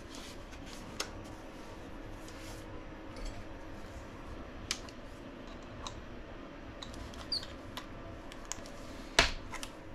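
Small scattered clicks and taps from a cordless Dremel rotary tool being handled while its collet is changed, over a faint steady hum. A louder knock, followed by a second, comes about nine seconds in.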